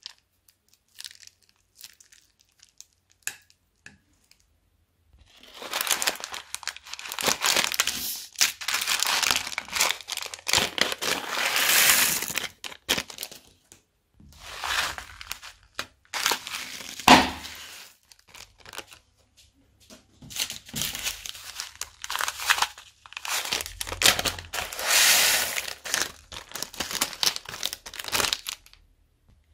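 Thin plastic bags crinkling and tearing as they are handled and emptied by hand, in several long bursts after a quieter start of faint ticks, with one sharp click a little past halfway.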